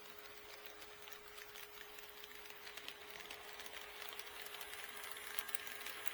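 HO scale model train running on KATO Unitrack: a steady hum with quick rattling clicks from the wheels over the track, growing louder as it approaches.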